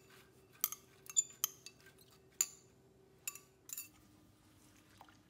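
A metal utensil clinking against a mixing bowl as scallions are stirred into bánh xèo batter: about six short, sharp clinks in the first four seconds, then only a faint steady hum.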